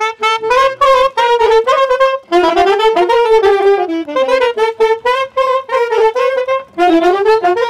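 Soprano saxophone playing a lively, ornamented folk melody that starts suddenly.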